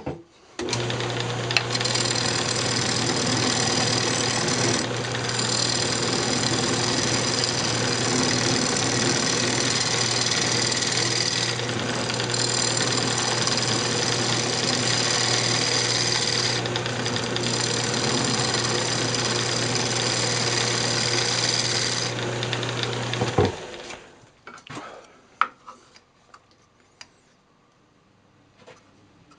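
Delta 46-460 wood lathe running with a steady motor hum while a gouge cuts a spinning maple blank, truing it up with a continuous hissing, scraping cut noise that thins briefly a few times as the tool eases off. The lathe stops about 23 seconds in, followed by a few light clicks and knocks of handling.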